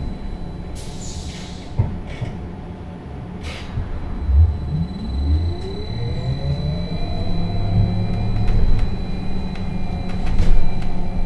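Škoda 30Tr trolleybus heard from inside the passenger cabin: two short hisses of compressed air in the first few seconds while it stands, then from about five seconds in the electric traction drive's whine rises in pitch as it pulls away, levelling off near the end.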